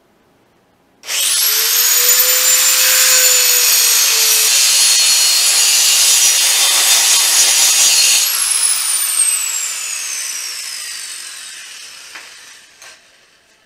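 High-speed grinder cutting into metal for about seven seconds, then let off and spinning down with a falling whine that fades out.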